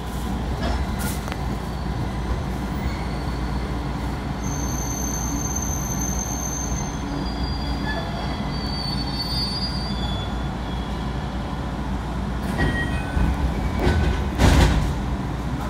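Commuter train slowing into a station, heard from inside the carriage. A steady running rumble carries high-pitched squeals from the brakes and wheels in the middle, then a few louder knocks near the end as it comes to a stop.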